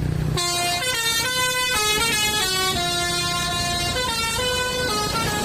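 Basuri telolet musical air horn on a bus, playing a quick stepping melody of pitched notes that starts about half a second in. A diesel bus engine runs underneath.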